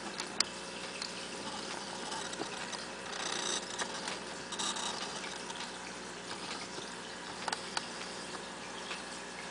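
Steady room noise with a faint hum, a few soft clicks and some brief hissy patches.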